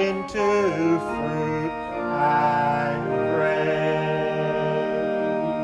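A congregational hymn, voices with organ-like accompaniment, settling into a long held final chord.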